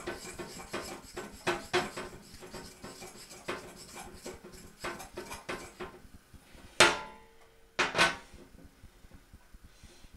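A fork clinking and scraping against a bowl in quick, regular strokes, whisking flour into beaten egg to make pancake batter. About seven and eight seconds in come two louder clinks, the first ringing briefly.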